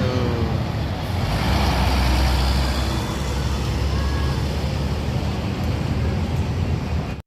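A large bus driving past close by: a deep engine rumble with tyre and road noise that swells about a second in and then holds steady.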